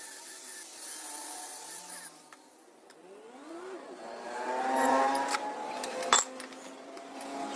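A machine's motor running with a steady whine, cutting out about two seconds in, then starting again and rising in pitch as it speeds up. A sharp click about six seconds in is the loudest sound.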